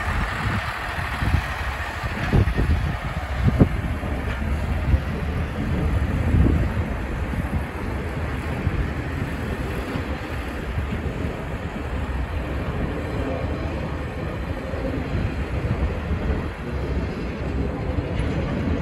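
Steady low rumble and running noise of a railway carriage travelling slowly, heard from on board, with a few knocks in the first several seconds.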